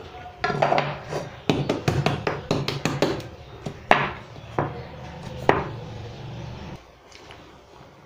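Steel cake tin and plate knocking and clattering against a wooden chopping board in a quick run of sharp knocks, as a tin of steamed kothimbir vadi is turned out onto the board.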